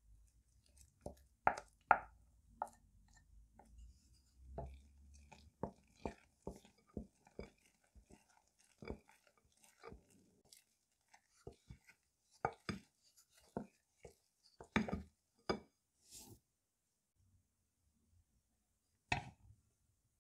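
Wooden spoon stirring thick chocolate pancake batter in a glass bowl, the spoon knocking and tapping against the glass in an irregular series of sharp clicks. There is a short pause near the end, then one more knock.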